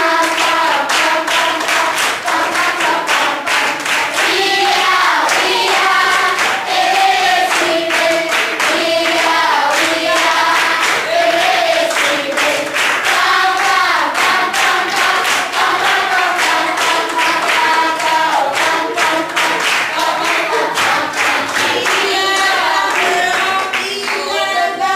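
A group of schoolchildren singing a song together, clapping in a steady beat.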